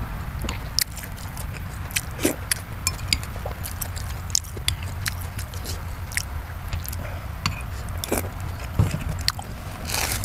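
Close-up chewing of sausage, with irregular wet mouth smacks and clicks over a steady low hum.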